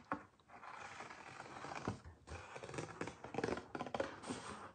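Scissors snipping through paper in a run of short, irregular cuts.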